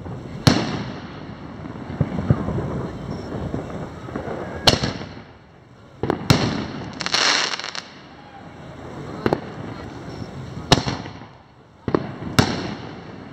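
Aerial firework shells with 60 g loads going off one after another: six sharp, loud reports a second and a half to four seconds apart, each trailing off in echo, with a hissing crackle about seven seconds in.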